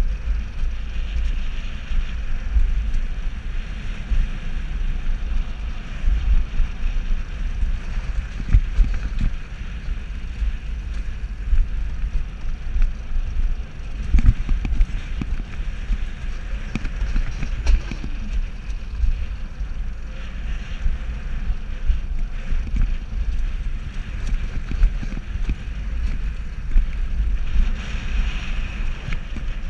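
Alpine coaster sled running fast down its steel rail track: a steady low rumble of the wheels on the rails, with wind buffeting the microphone and a few sharp knocks along the way.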